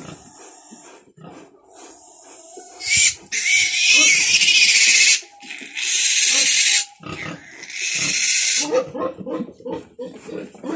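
Newborn piglet squealing while held for its umbilical cord to be cut: three loud, harsh screams of about a second each, beginning about three seconds in. Short quick grunts follow near the end.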